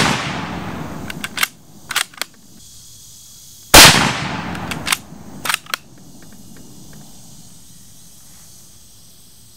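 CZ 527 Carbine bolt-action rifle firing 7.62x39 rounds. The echo of one shot fades at the start and a second sharp report comes nearly four seconds in. Each shot is followed by a few quick metallic clicks as the bolt is worked to chamber the next round.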